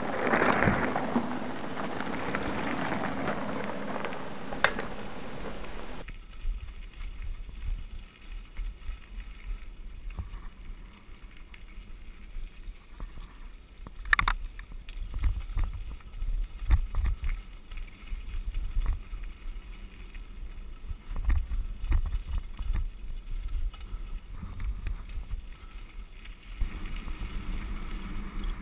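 Mountain bike rolling fast down a rough gravel road, heard from a camera mounted on the bike: gusty wind rumble on the microphone with scattered rattles and knocks from the loose stones, one sharp knock about a quarter of the way through. The first six seconds hold a louder, steadier rushing noise before the sound changes abruptly.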